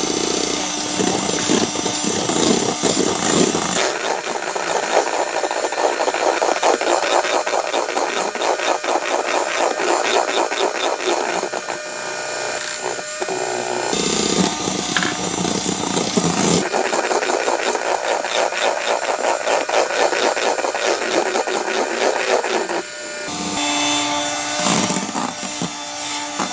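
Electric hand mixer whisking egg whites in a stainless steel bowl, the beaters rattling against the metal. Its sound shifts several times as the whites are beaten with sugar toward a stiff meringue foam.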